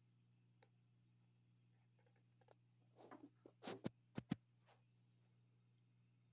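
A handful of light clicks and knocks from the phone bumping and scraping against the turtle tank's frame and glass, bunched about three to four and a half seconds in, over a faint, steady low hum.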